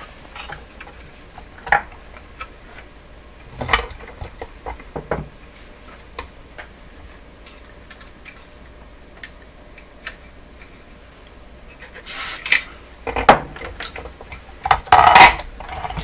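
Small clicks and light metallic clatter of tools and switch parts being handled while cleaning the push-button switches of a vintage tube console radio. A short spray hiss about twelve seconds in, from contact-cleaner fluid sprayed into a switch. Louder knocks and clatter follow near the end.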